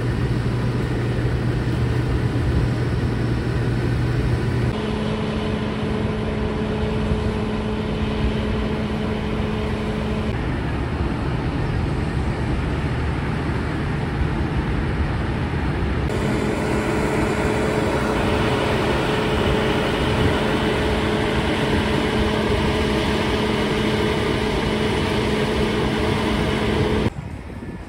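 Diesel engines of parked fire trucks, a pumper and a ladder truck, idling: a steady low rumble with a held engine tone that shifts abruptly a few times.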